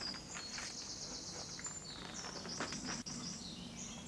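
Soft rustles and light knocks of paper being peeled off and handled over a gelatin-coated glass collotype plate after blotting its surface dry. Behind them runs a steady background of high, pulsing chirps.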